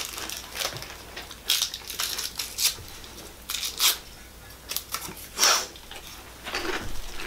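A fortune cookie being broken open by hand: irregular crisp crunches and crackles, with the strongest few about a second and a half, about four, and about five and a half seconds in.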